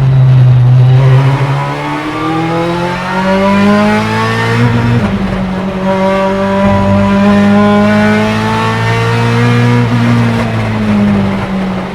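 Ferrari F430 GTC/GT2's naturally aspirated 4.0-litre V8 racing engine accelerating under load, its pitch climbing over several seconds. About five seconds in there is a quick break, like an upshift, then it climbs again and drops off near the end as the throttle eases.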